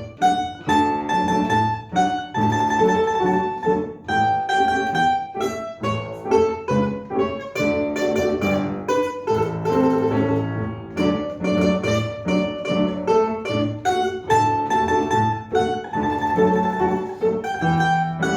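A plucked string instrument playing a march: single plucked notes in a steady, even beat.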